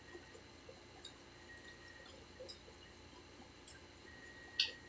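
Faint, close-up mouth sounds of chewing pizza: soft wet clicks and lip smacks every second or so, with a sharper smack near the end.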